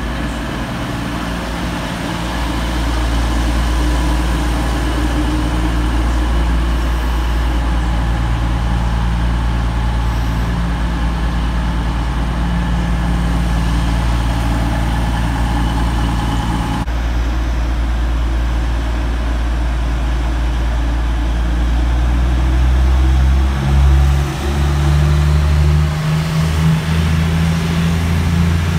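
Diesel engines of a Class 222 Meridian multiple unit running as the train moves slowly along the platform, a steady low drone. After a cut about 17 seconds in, a Meridian's engines drone on and their note rises and wavers over the last few seconds as it pulls away.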